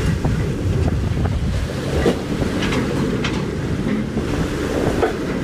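Storm wind buffeting the microphone over heavy seas breaking against a bulk carrier's bow: a steady rushing noise, deepest in the low end, with a few short, sharp hits along the way.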